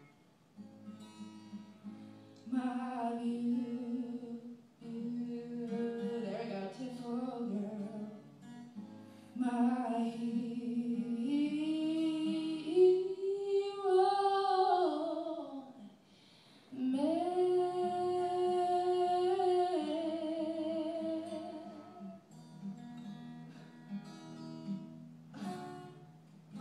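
A woman singing live to her own acoustic guitar accompaniment, with long held, sliding notes; it grows quieter near the end.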